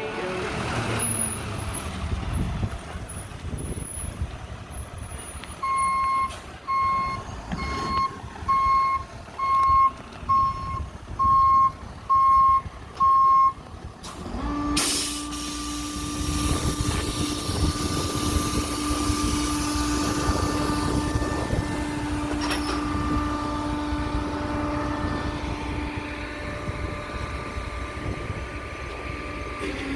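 Tow truck backing up, its reverse alarm beeping about ten times at a little over one beep a second over the rumble of its running engine. About halfway through a steady droning hum starts and keeps going.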